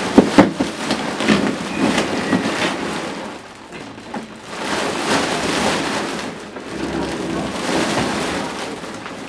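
Foil balloon crinkling and rustling as it is pressed and squashed under a baby's hands and body, with a few sharp crackles in the first second and louder rustling swells about five and eight seconds in.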